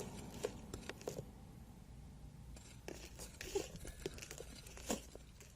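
Loose soil and small stones being handled: light, scattered crunches and clicks.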